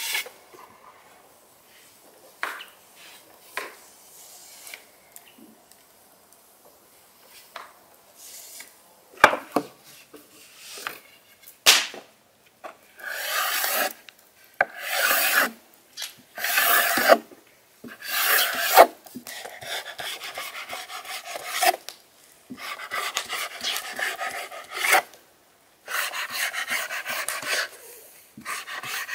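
A wooden rolling pin rubbing and rasping over a thin sheet of dough on a floured wooden board, in separate strokes. Near the end a knife is drawn through the dough against the board, cutting it into squares.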